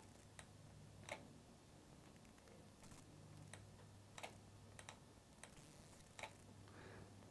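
Near silence: room tone with a faint steady hum and about a dozen faint, irregularly spaced clicks, the kind made while writing on a computer screen.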